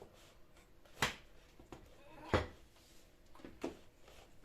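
Parts of a flat-pack bio-fireplace being knocked and fitted together by hand: three sharp knocks roughly a second and a half apart, the one near the middle the loudest and heaviest, with smaller clicks and rustles between.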